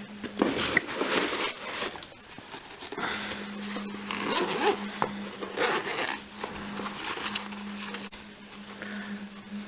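Packaging rustling and crinkling in irregular bursts as a doll is handled and unwrapped, over a steady low hum.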